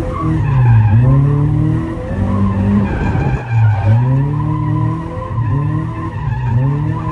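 A 1990 Mazda Miata's 1.6-litre four-cylinder engine revs in first gear, its pitch dipping and climbing again about three times while the tyres squeal and skid in a slide.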